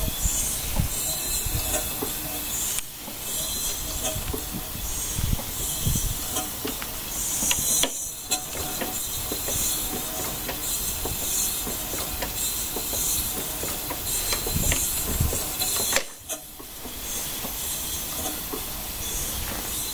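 Vertical steam engine with reversing link gear running on compressed air: a steady hiss of exhausting air with the clatter of its valve gear and cranks. The hiss dips briefly a few times.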